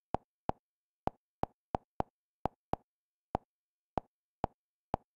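Kodi menu navigation sounds: twelve short, identical clicks at uneven intervals, about two a second, as the on-screen menu is scrolled.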